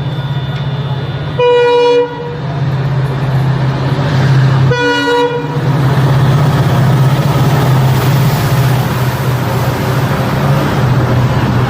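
WDP-4D diesel locomotive's 16-cylinder two-stroke engine humming steadily, with two short horn blasts about three seconds apart, the first the louder.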